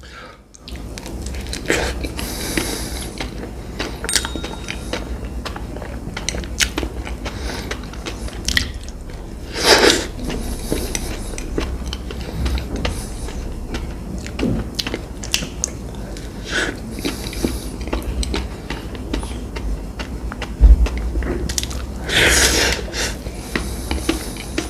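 Close-miked eating: crisp bites and wet chewing, with louder crunchy bites about two seconds in, near the middle and near the end, over a steady low hum.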